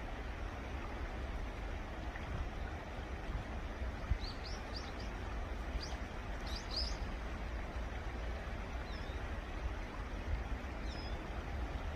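Steady outdoor background hiss with a low rumble, and a few short, thin, high chirps from a small bird, clustered about four to seven seconds in, with fainter ones near the end.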